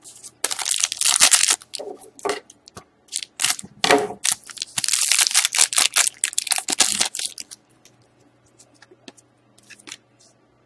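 Trading card pack wrapper crinkling and tearing as it is handled and opened, in two spells, the longer one in the middle, followed by a few faint clicks and taps.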